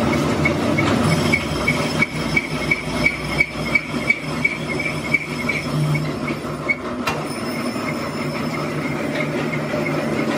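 Metal lathe running with its carbide tool cutting at the threaded end of a steel hydraulic cylinder barrel: a steady machine hum with metallic scraping and a regular tick about five times a second, the tick stopping about seven seconds in.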